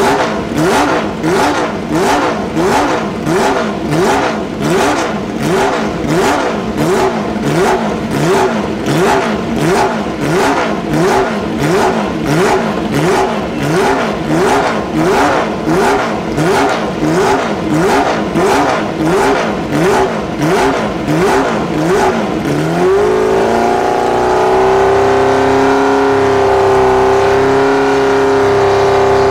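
Racing car engine revved in quick throttle blips, about two a second, its pitch rising and falling each time; a little over twenty seconds in it climbs and is held at steady high revs.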